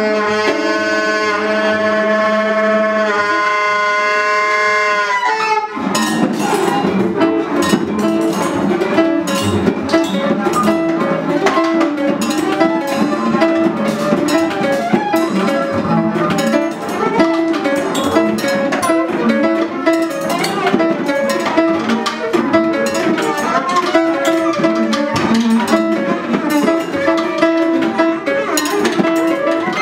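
Free-improvised music from a quartet of grand piano, bowed double bass, alto saxophone and drum kit. It opens with a few seconds of held tones that bend downward, then about five seconds in breaks into a dense, busy texture of short notes and percussive clicks and strikes.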